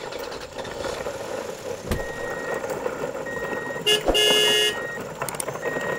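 A vehicle horn toots once, for under a second, about four seconds in. It sounds over a steady engine-like drone, with a single knock about two seconds in.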